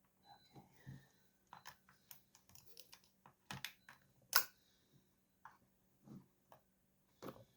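Scattered light clicks and clinks of hand tools and small parts being handled while a chainsaw is taken apart, with the sharpest click a little past halfway.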